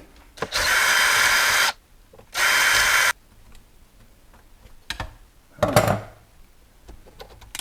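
Cordless power driver spinning in two bursts, the first about a second long and the second shorter, backing out the screws of an RC car's center brace. A couple of sharp knocks follow about two seconds later.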